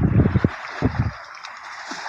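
Wind buffeting the microphone for the first half second, then a steady rush of flowing water.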